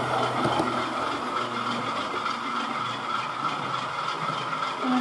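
A model railway train running along the track: a steady electric-motor whirr with a light, regular clicking of wheels over the rail.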